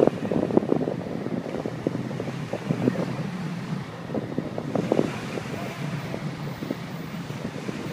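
Wind buffeting the microphone in irregular gusts, with a low rumble underneath.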